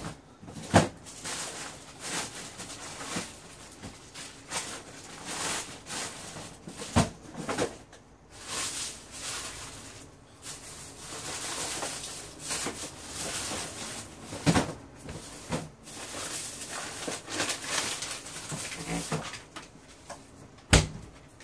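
Rustling and scattered knocks of someone rummaging through laundry at a front-loading washing machine. A few sharp thuds stand out, the loudest about a second in.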